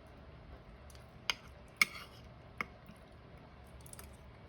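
Three short, sharp clicks of an eating utensil against a meal tray during a meal, the second the loudest, with chewing sounds between.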